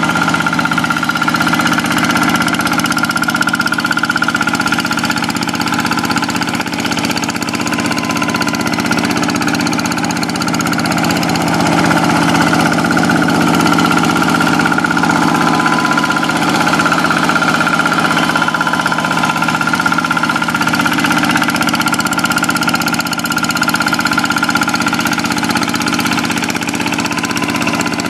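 Quick two-wheel hand tractor's Kubota single-cylinder diesel engine running steadily while ploughing a rice paddy.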